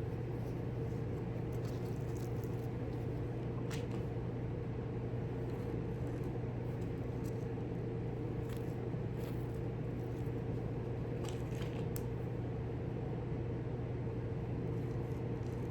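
A steady low mechanical hum runs throughout, with a few faint light clicks of small parts being handled scattered through it.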